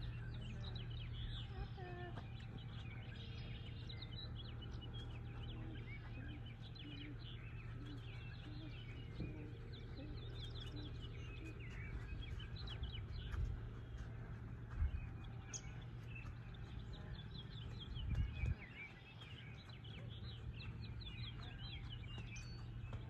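A chorus of small songbirds chirping and singing, many short calls overlapping, over a steady low hum. A brief low thump comes midway and a louder low rumble a few seconds later.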